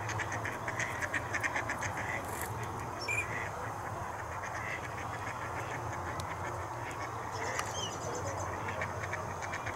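Ducks calling: fast runs of short quacking calls, one in the first two seconds and another near the end, with a couple of brief high whistled chirps between, over a steady low hum.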